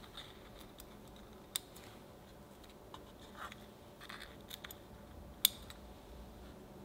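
Soft handling sounds of thin cooked crepe flaps being folded by hand over a sponge cake in a metal muffin tin: light rustles with a few sharp clicks, the loudest about five and a half seconds in.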